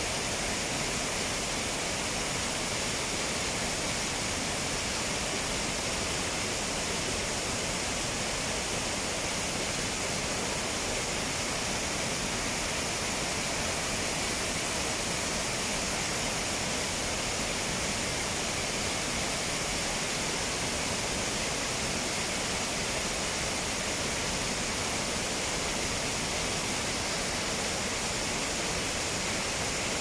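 Waterfall pouring in several streams over mossy rock ledges: a steady, unbroken rush of falling water.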